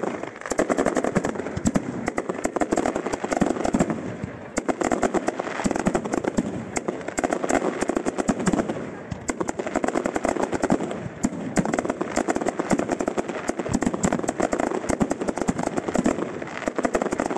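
Fireworks display at full tilt: a dense, continuous barrage of rapid bangs and crackling reports from aerial shells and ground fountains firing together, many per second, briefly easing twice before picking up again.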